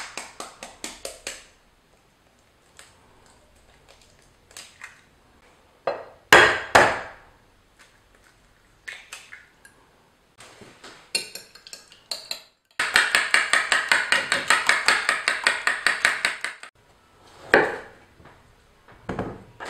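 Eggs cracked against a ceramic plate, with sharp knocks and taps, then beaten in the plate with a fork or chopsticks in rapid even strokes, about six a second, for about four seconds. Near the end a chef's knife cuts through a round zucchini down onto a bamboo cutting board.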